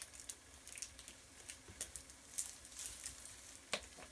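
Light, irregular clicks and ticks of small hard parts being handled: tiny screws and pliers worked while fitting plastic blade guards to a drone, with one sharper click near the end.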